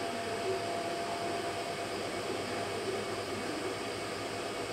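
Steady background hiss, like a fan or air conditioner running, with a faint steady tone; no distinct sounds from the crocheting.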